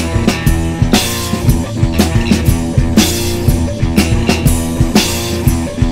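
Rock band recording: a steady drum-kit beat with cymbal crashes about every second, over bass and guitar.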